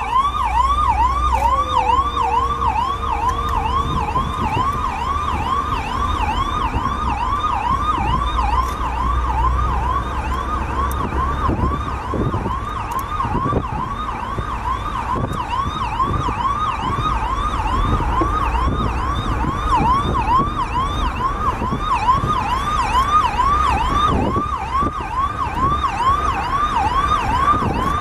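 Electronic emergency-vehicle siren sounding a fast yelp, a steady run of quick up-and-down sweeps, about two a second, over a low rumble.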